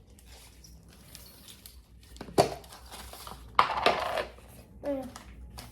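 Handling of a plastic toy and its packaging: a sharp click about halfway through, then a short rustle a second later.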